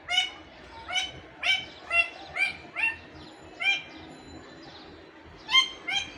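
Parakeet (tia pakhi) giving a string of short, sharp calls, about nine, several in quick succession in the first three seconds and two more near the end.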